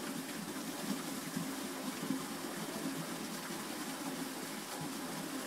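Steady rushing background noise with a faint low hum underneath, even throughout, with no distinct events.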